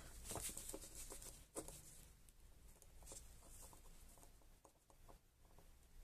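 Near silence: faint rustles and a few small clicks of multimeter test probes being handled and pressed onto a circuit board.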